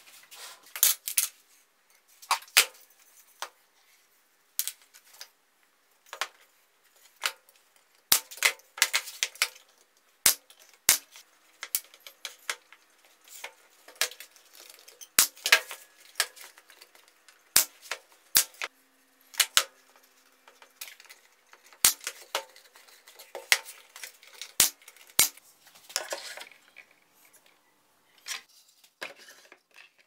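Irregular sharp clicks and knocks of wooden staves and tools being handled and set down on a workbench during a glue-up.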